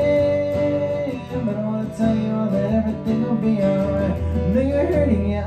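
Acoustic guitar strummed steadily, with a man's voice holding a long sung note at the start and sliding through further wordless notes over the chords.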